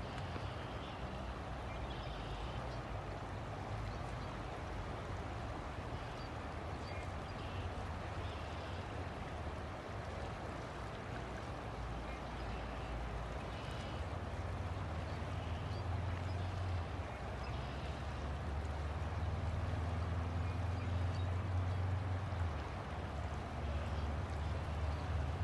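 River water flowing steadily, under a low rumble that grows louder about halfway through. Faint, short high sounds come and go.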